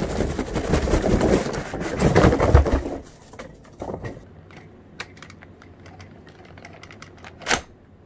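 Handling noise: about three seconds of loud rustling and clatter, then a quieter stretch of scattered light clicks, with one sharper click near the end.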